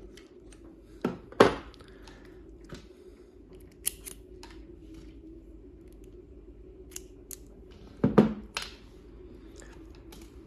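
Scattered metallic clicks and clinks of a hand tool and small steel parts, heard while a screw is tightened on a model nitro engine's clutch. Two knocks stand out as louder, one about a second and a half in and one about eight seconds in.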